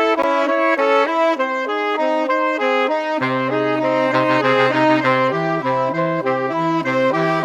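Instrumental music: a melody of short, quickly stepping notes, with a low bass line coming in about three seconds in.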